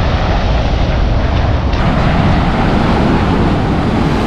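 Strong wind buffeting the microphone with a steady low rumble, over the wash of breaking surf.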